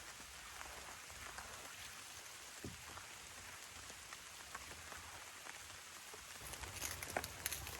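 Rain falling steadily, with scattered drop hits; near the end a cluster of sharper clicks and taps stands out above the rain.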